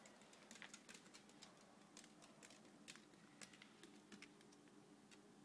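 Faint, irregular clicking, a few clicks a second: a chihuahua's claws tapping as she dances.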